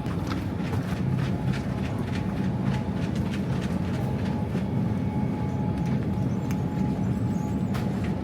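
Grocery-store background noise: a steady low rumble with frequent clicking and rattling over a faint steady hum.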